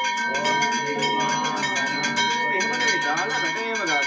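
A temple bell rung over and over in quick strokes, its ringing tones held steadily, over the voices of a crowd of worshippers.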